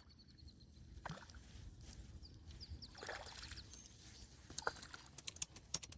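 Faint water sloshing and splashing as a small panfish is reeled in to the bank or boat, with a quick run of sharp splashes or ticks near the end as it is landed.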